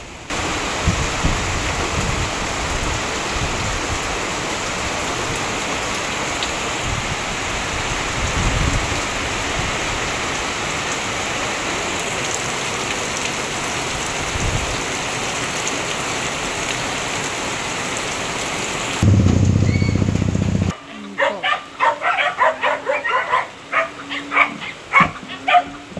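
Steady heavy rain falling on a thatched roof and banana leaves. About nineteen seconds in, a loud low rumble lasts a couple of seconds. It is followed by goats bleating many times in short calls near the end.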